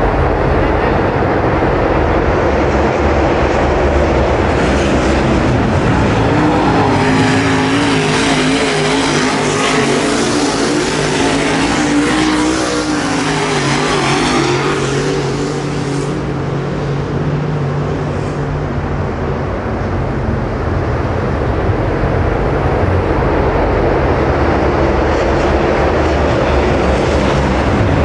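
Dirt late model race cars' V8 engines running hard around a dirt oval in a heat race, a continuous loud engine noise from the pack. One engine's pitch rises and falls through the middle as a car passes close.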